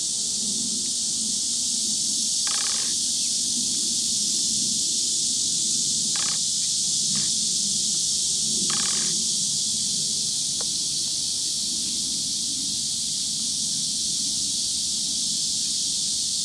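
Steady high-pitched hiss with a faint low rumble beneath it. A few short chirps break in, the clearest about two and a half and nine seconds in.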